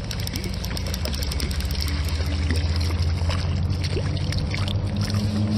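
Hooked trout splashing at the water surface as it is reeled in close, with short splashes and sloshing. A steady low hum runs underneath and is the loudest sound.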